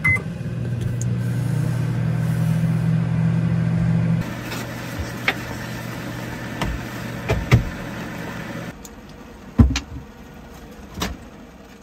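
A steady low machine hum that drops to a lower note about four seconds in and cuts off near nine seconds, with several sharp clicks and knocks.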